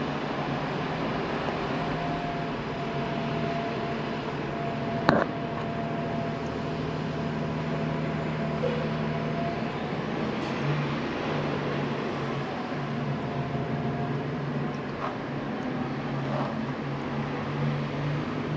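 Steady city-street traffic noise mixed with a low machine hum over an open construction excavation, with one sharp knock about five seconds in.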